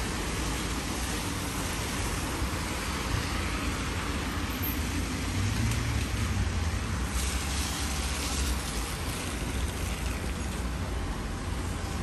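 Road traffic on a rain-wet street: cars passing with a steady hiss of tyres on wet asphalt and a low rumble underneath.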